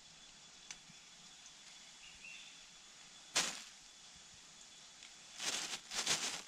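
Quiet forest stream-bank ambience with a faint steady high tone. A brief swish comes a little past three seconds, and two longer rustling swishes, the loudest sounds, come near the end, like leaves and undergrowth being brushed.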